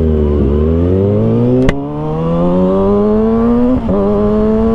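Kawasaki ZX-6R inline-four engine under hard acceleration, its pitch climbing steadily. Near four seconds in the pitch drops quickly and climbs again: a quickshifter upshift without letting off the throttle. A sharp click a little before two seconds in.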